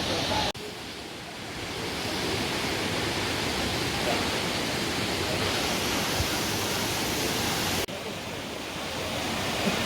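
Waterfall: a steady rush of falling water, with two abrupt dips about half a second in and near the end, after which it builds back up.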